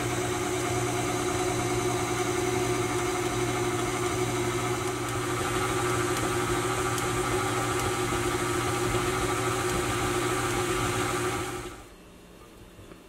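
Electric tilt-head stand mixer running steadily at one speed, its beater turning a stiff, crumbly flour-and-butter dough in a glass bowl. The motor stops near the end.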